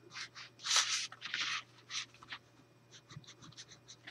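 A hand rubbing firmly over paper, burnishing tape down so it sticks: a series of short, dry rubbing strokes, the loudest about a second in, then lighter scratchy rubs.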